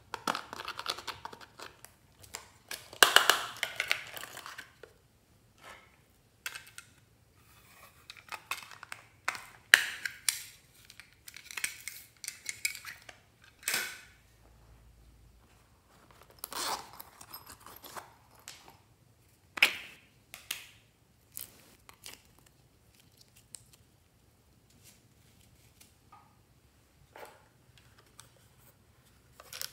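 Close-up handling of small plastic toy makeup cases: a pointed tool scraping and crumbling pressed eyeshadow out of a plastic palette, with scattered sharp plastic clicks and clacks. The scraping is thickest a few seconds in; the clicks come every few seconds afterwards.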